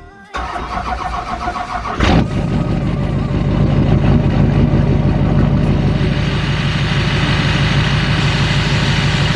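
Honda 350 ATV engine turned over by its electric starter, catching about two seconds in and then running steadily at idle.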